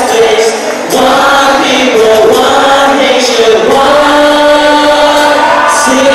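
Live song: voices singing long held notes to acoustic guitar, cajon and keyboard accompaniment.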